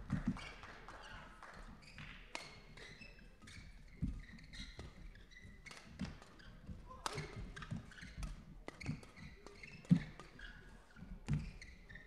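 Badminton rally: repeated sharp racket strikes on the shuttlecock mixed with the players' quick thudding footsteps on the court, the loudest hit coming about ten seconds in.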